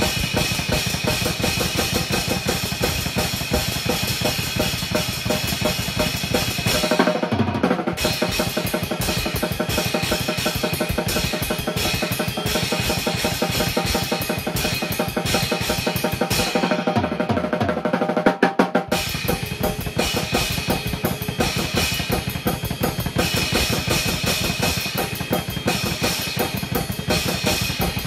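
Drum kit played continuously in a dense, fast pattern of strokes; the bass drum drops out briefly twice, about seven and again about seventeen seconds in.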